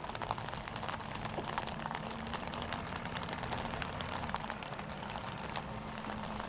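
A tow vehicle's engine running low and steady as it pulls a boat trailer slowly forward, its tone shifting slightly partway through, with light rain making scattered ticks.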